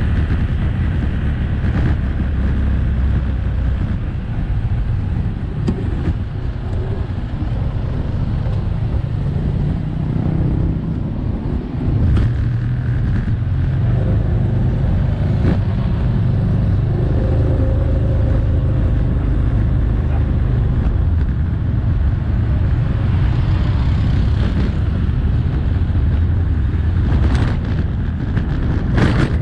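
Motorbike engine running under way, with wind and road noise rushing over the microphone; the engine note shifts as the bike slows and picks up speed, with a brief dip about eleven seconds in.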